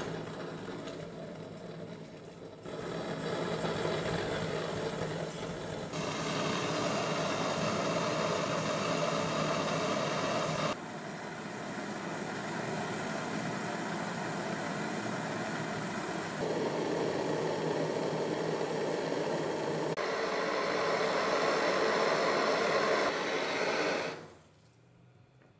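Restored 1930s German gasoline blowtorch burning with a steady rushing noise. The level jumps abruptly several times. It dies away about a second and a half before the end as the valve is closed.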